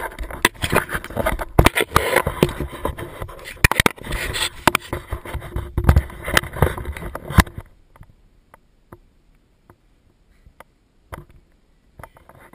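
Close scraping, rubbing and knocking of an action camera being handled and lifted off its low mount, with many sharp clicks. It stops about seven and a half seconds in, leaving only faint scattered clicks.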